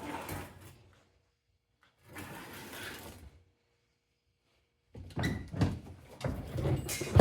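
Metal parts of a microwave oven being handled and pried during disassembly, in three bursts of scraping and clatter; the last is a busy run of knocks and rattles.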